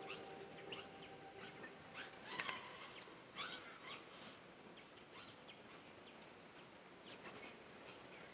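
Faint rural outdoor ambience with scattered bird chirps and short calls, a few of them a little louder about two and a half and seven seconds in, over a thin high tone that comes and goes. A few held notes of music fade out in the first couple of seconds.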